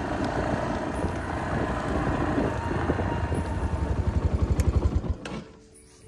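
A vehicle engine running, its low throb pulsing more strongly toward the end, then cutting off suddenly about five seconds in.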